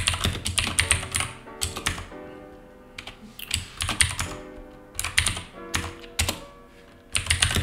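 Typing on a computer keyboard: quick runs of keystrokes in several short bursts with pauses between.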